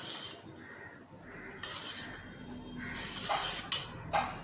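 Pani puri water (mint-coriander paste, tamarind water and spices) being stirred in a bowl with a spoon: a few short swishes and splashes of the liquid, the busiest around three seconds in.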